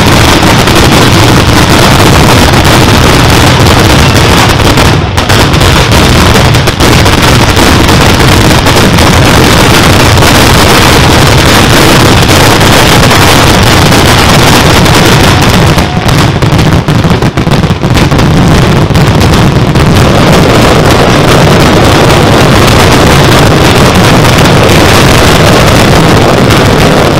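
Valencian-style nocturna barrage: strings of firecrackers hung on overhead wire lines going off together, so densely that the bangs run into one continuous, overloaded din. It eases slightly for a few seconds past the middle, then carries on at full force.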